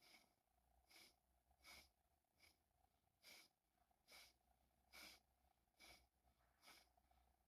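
Near silence: room tone, with faint short soft ticks at an even pace, a little more often than once a second.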